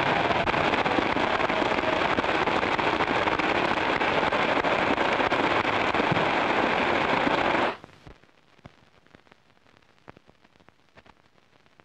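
Large hall audience applauding steadily, cutting off abruptly about two-thirds of the way through. After that only the faint hiss and scattered crackle of an old film soundtrack remain.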